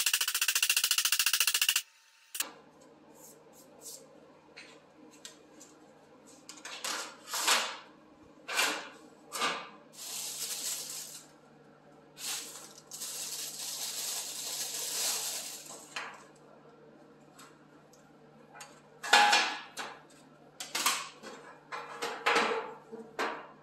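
Rapid mallet blows on a sheet-aluminium flange clamped to a steel table, bending it over, cutting off about two seconds in. Then scattered knocks and clinks of small metal and plastic parts set down on a steel workbench, with two spells of a plastic bag crinkling.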